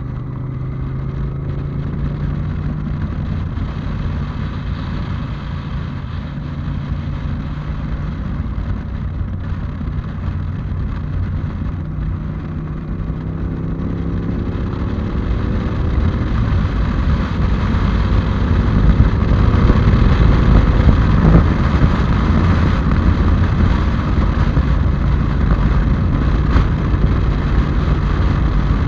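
Yamaha TDM parallel-twin motorcycle engine running on the move, its note rising and falling as the rider works the throttle, with wind rushing over a helmet-mounted microphone that grows louder about halfway through.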